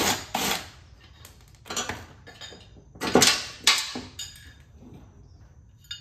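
Loose steel mower-deck parts, pulley hubs and hand tools, clanking as they are handled and set down: a handful of sharp metallic clanks with a short ring, the loudest about three seconds in.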